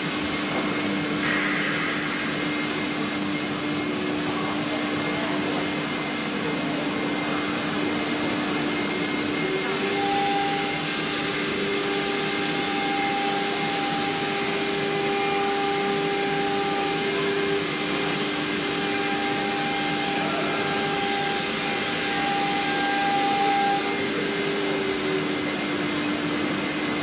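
Chencan CC-MS2030AC CNC router's spindle running with a steady whine while its cutter engraves a wooden board, over a steady rushing noise. About ten seconds in, a second higher tone joins and drops out a few seconds before the end.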